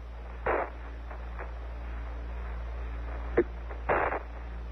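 Apollo 11 air-to-ground radio between transmissions: a steady hum under radio hiss, broken by short bursts of static, one of them a sharp click, around half a second in and again near the end.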